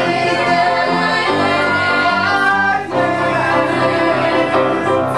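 Several performers singing together in an improvised musical number, with piano accompaniment.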